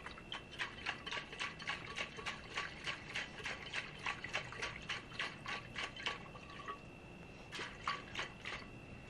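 Water sloshing and knocking inside a closed Klean Kanteen TKWide stainless steel bottle shaken hard upside down, its twist cap screwed tight: a quick run of jolts, about three or four a second, a short pause near the end, then a few more.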